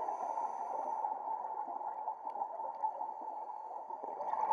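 Underwater ambience picked up by a scuba diver's camera: a steady rushing noise, with the diver's exhaled regulator bubbles gurgling near the start.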